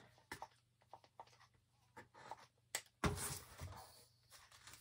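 Faint taps and small rustles of thin plastic being handled, then, about three seconds in, a sudden louder rustling crinkle lasting about a second as the hot-glued plastic faux-tin tile is flipped onto the plastic-sheeted table and pressed down by hand.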